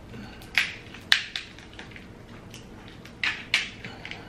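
King crab leg shell being cracked and snapped apart by hand, giving sharp, loud cracks: two or three within the first second and a half, then two more a little after three seconds in.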